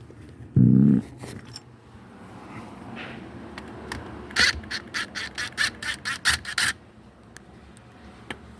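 Hand work on a steering column while the clock spring is being taken off: a short dull thud about half a second in, then a quick run of about ten sharp clicks around the middle.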